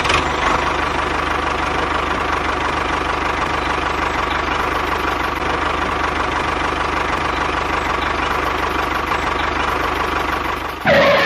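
Engine idling steadily with a fast, even knocking pulse, cutting off abruptly just before the end.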